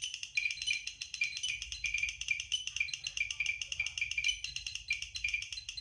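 Geiger counter clicking and chirping very rapidly, a dense, high-pitched stream of counts from uraninite ore: a very high count rate from strongly radioactive mineral.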